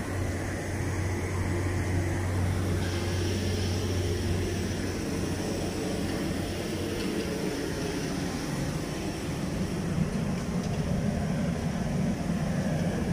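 Diesel engine of a heavy red construction crane running steadily with a deep drone. Its tone shifts about halfway through, the lowest hum fading as a slightly higher drone comes up.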